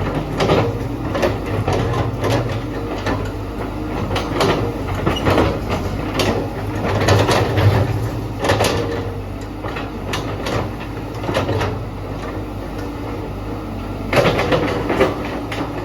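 Caterpillar 312D excavator running, its diesel engine giving a steady low hum, with frequent sharp knocks and clanks from the machine.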